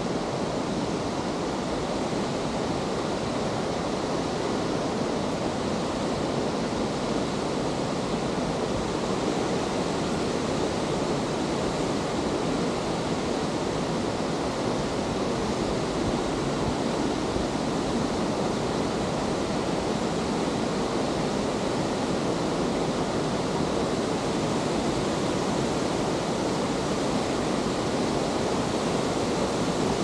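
Steady rushing of a waterfall cascading down a rock face, an even, unbroken wash of water noise.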